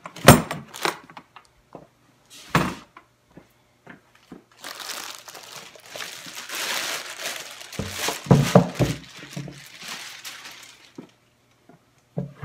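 Plastic bag wrapping crinkling and rustling for several seconds as it is pulled off a portable band saw. A few sharp knocks come in the first seconds, and heavier thumps come near the middle as the saw is handled on the table.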